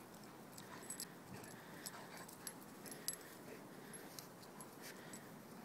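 Golden retrievers and their puppies moving about on grass, faint, with many scattered light clicks and metallic jingles.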